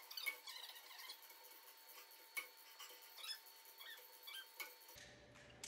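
Faint, scattered short high squeaks and chirps over a faint steady tone, the sound of the strength-test room played back sped up. About five seconds in, playback drops to normal speed and a low room hum comes in.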